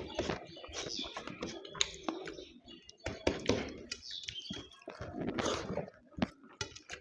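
A person eating mutton curry close to the microphone: irregular chewing, smacking and wet mouth sounds, with small clicks.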